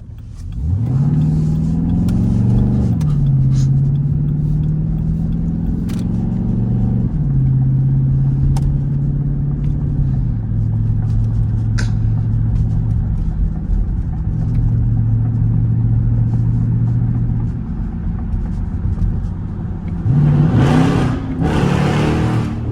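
Jeep SRT8's straight-piped HEMI V8 accelerating: the pitch climbs from about a second in and drops back at each upshift, twice in the first several seconds, then holds steady while cruising. Near the end it gives two sharp, loud revs.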